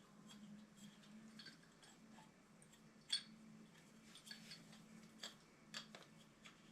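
Faint scattered clicks and light metallic taps of small parts and tools being handled, with one sharper click about three seconds in, over a faint steady low hum.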